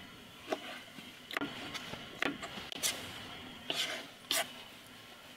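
Dishes and utensils being handled: about six light knocks and clinks, scattered irregularly, over a faint steady hiss.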